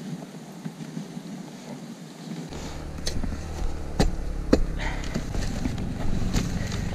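Wooden dog sled running over the snow trail: a soft hiss at first, then from about two and a half seconds in a louder rumble with several sharp knocks and rattles as the sled bumps along.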